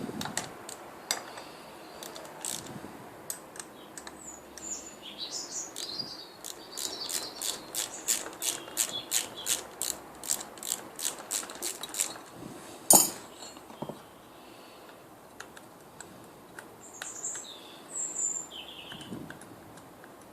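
Ratchet spanner clicking in runs of about four clicks a second as it undoes the nuts holding the air dryer to the compressor's cylinder head, followed by one loud sharp knock about two-thirds of the way in.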